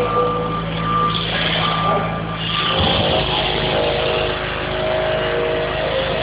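Electronic soundtrack of a sound and light show: a low droning hum under held tones and on-off beeping tones. The drone changes about three seconds in, and the higher tones shift.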